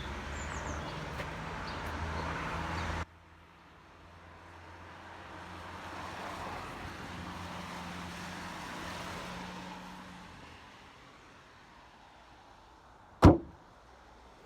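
A car engine running steadily for about three seconds, cut off abruptly, then a quieter vehicle noise that swells and fades away. Near the end, a single sharp bang, the loudest sound.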